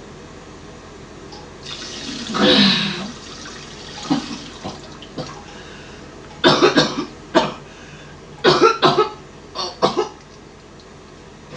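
A man coughing in several short fits, the longest about two seconds in, while in a pain crisis.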